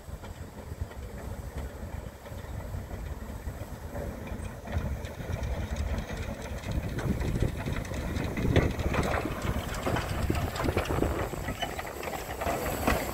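Narrow-gauge steam locomotive "Hamra" arriving with a passenger train and passing close by, its rumble growing steadily louder. From about halfway through, many short clicks and knocks from the wheels and running gear come through.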